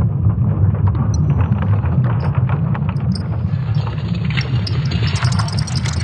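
Sonification of Earth's magnetic field made from ESA Swarm satellite measurements: a steady deep rumble with scattered crackles, and a brighter crackling hiss joining about four seconds in.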